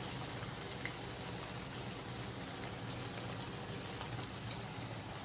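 Raw-mince kebab patties deep-frying in hot oil in a kadai: a steady sizzle with scattered small crackles. The oil is still bubbling around the first side; the patties are turned once this bubbling dies down.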